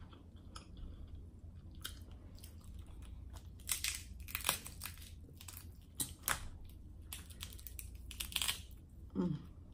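Crab leg shells from a snow crab cluster cracking and crunching as they are snapped and pulled apart by hand, in three short bunches of sharp cracks.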